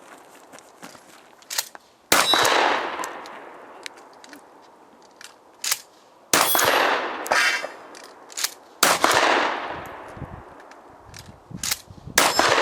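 Four 12-gauge shotgun shots from a Remington 870 pump-action, about 2, 6.5, 9 and 12 seconds in, each ringing out and fading. Shorter clacks and clangs fall between the shots.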